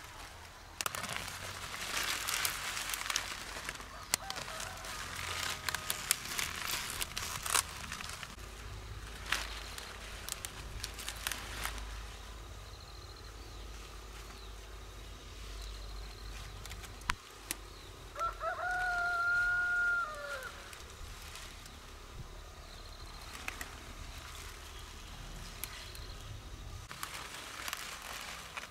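A rooster crowing, one long call held about two seconds and dropping off at the end, around two-thirds of the way through, with a fainter crow earlier. Through the first half, leafy kohlrabi plants rustle and crackle as they are handled.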